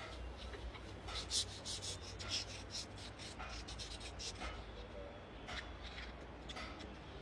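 Emery board nail file rasping on a rooster's claws in quick short strokes, about four a second, then a few single strokes near the end.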